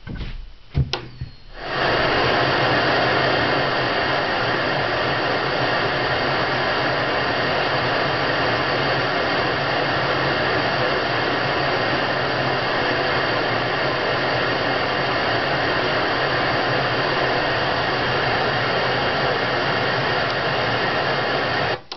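A click about a second in, then steady static hiss from an old cathode-ray TV set to an empty channel; the hiss swells in over about a second and cuts off suddenly near the end.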